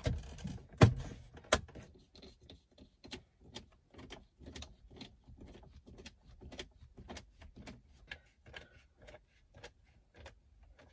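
Hands working cables and plastic car centre-console trim: three sharp plastic clicks in the first second and a half, then a run of light clicks and rustles as the wiring is routed through the console.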